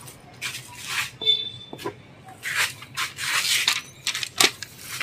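Rustling, rubbing and a few light knocks from cardboard boxes and packing being handled, with a short high squeak just after a second in.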